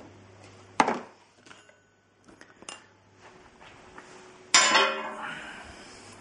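Hard objects knocking and clattering as they are handled and set down. There is a sharp knock about a second in, then a few light clicks, then a louder clatter a little past four seconds in with a short ringing tail.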